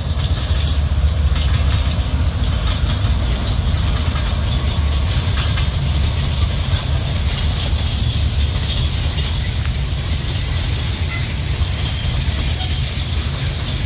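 Container freight train passing close by: a steady, loud low rumble of the locomotive and wagons, with a fine clatter of wheels over the track.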